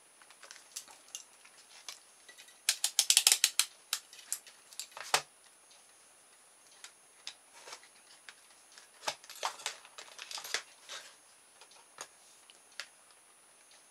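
Clicks and clatter of small hard plastic objects being handled and set down on a desk as a digital multimeter and its test leads are fetched: a quick run of rattling clicks about three seconds in, and another cluster of clicks about nine to eleven seconds in.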